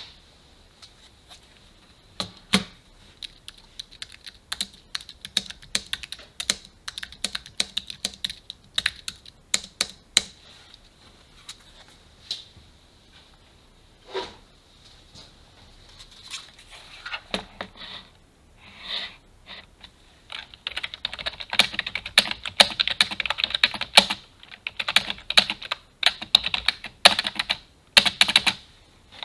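Typing on a computer keyboard: scattered keystrokes and short bursts of key clicks at first, then from about twenty seconds in a fast, dense run of typing.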